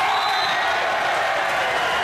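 Volleyball crowd cheering and shouting with some clapping, a dense steady din of many voices.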